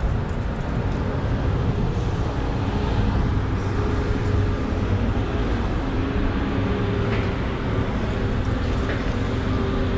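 An engine running steadily: a continuous low rumble with a faint steady hum above it, and a couple of light clicks late on.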